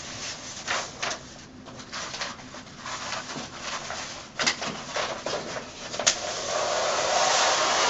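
Self-adhesive wall mural and its wax-paper backing being handled: crackling paper rustles and a few sharp clicks as the backing is pulled away and the sheet is pressed on by hand. About six seconds in, a steadier, louder rubbing hiss of paper sets in and builds.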